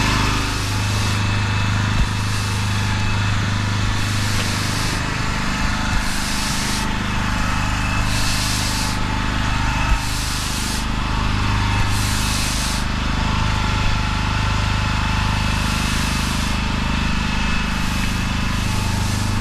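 Stiff broom sweeping wet slop across block paving in repeated swishing strokes about a second long, over the steady drone of a pressure-washer engine running.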